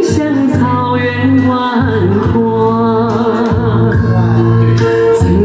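A woman and a man singing a duet into handheld microphones over accompanying music with a steady bass line and beat, amplified through a sound system.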